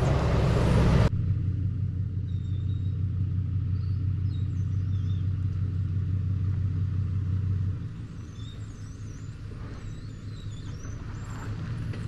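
A four-wheel-drive's engine running steadily with a low hum that drops in level about two-thirds of the way through, while birds chirp faintly. A louder rushing noise cuts off abruptly about a second in.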